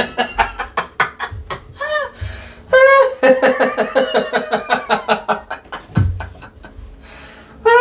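A voice laughing in quick rhythmic bursts, about four a second, over music with a ticking beat.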